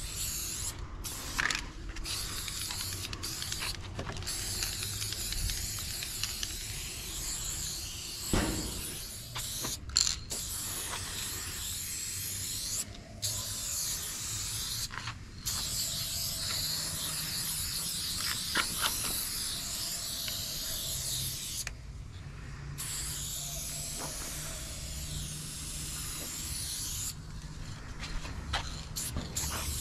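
Aerosol spray-paint can hissing in long bursts, broken by short pauses between strokes, with a few light clicks and knocks, the loudest about ten seconds in.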